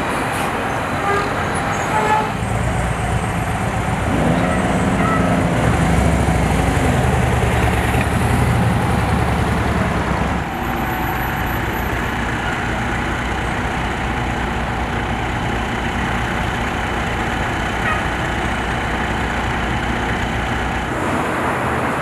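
A heavy vehicle's engine running steadily, with road traffic noise.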